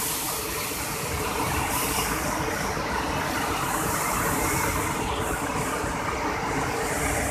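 Floodwater rushing out through a dam's open spillway gates and churning below: a steady, unbroken roar of water.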